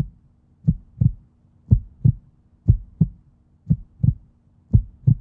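Heartbeat sound effect: low double thumps, lub-dub, about once a second, five beats in a row.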